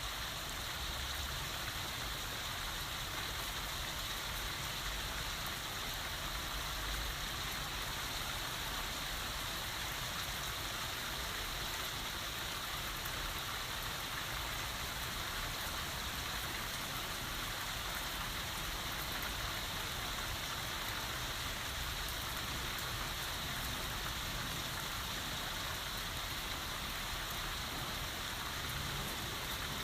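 Heavy rain falling and pattering on surfaces, steady and even with no thunder.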